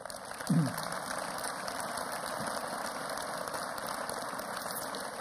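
Audience applauding, a steady dense clapping that starts suddenly right after the end of a conference talk, with a short voice sound about half a second in.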